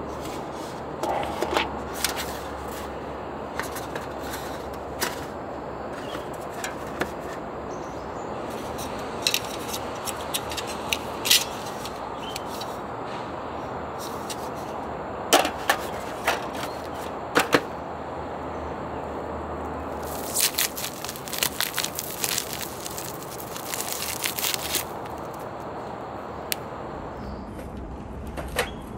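Thin aluminium foil grill trays handled by hand: scattered crinkles and sharp clicks of the foil, coming thickest about two-thirds of the way through, over a steady background noise.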